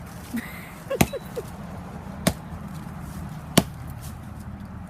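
Axe chopping into a Christmas tree's trunk: three sharp strikes, evenly spaced about a second and a quarter apart.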